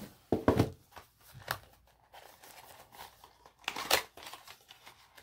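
A small cardboard box and its packaging being handled: a few knocks and rustles, the loudest about half a second in and again near four seconds in.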